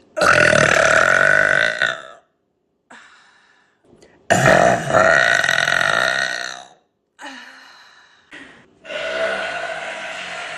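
A woman burping: three long, loud burps of about two seconds each, the third one quieter.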